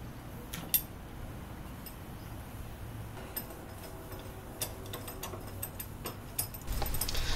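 Steel C-clamp being fitted to a wooden bench and its screw turned down: scattered light metallic clicks and taps, one sharper click about a second in and more toward the end.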